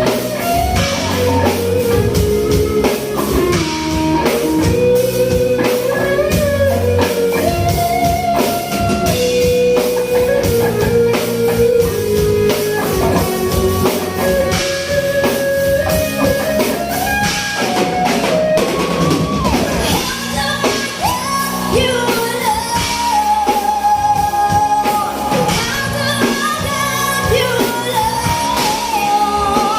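Rock power ballad: a sung melody over guitar and drum kit, playing without a break.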